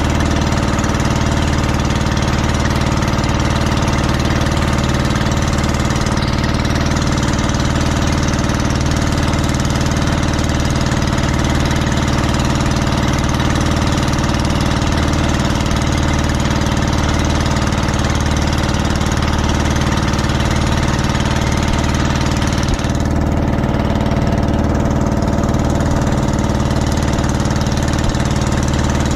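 Engine of an outrigger motor boat (bangka) running steadily at constant speed, a loud even drone that does not change pitch.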